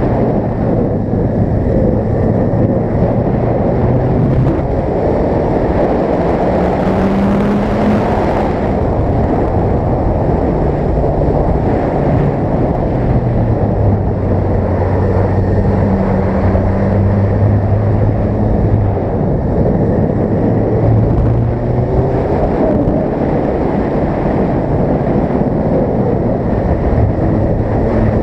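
Suzuki GSX-R sport bike's engine running under way, its pitch rising and falling as the throttle is worked, with wind rushing over the camera microphone.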